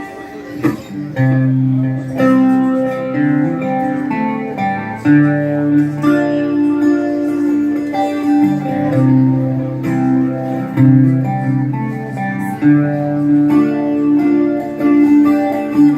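Guitar-led instrumental passage of a song: sustained chords that change every second or two, with no singing.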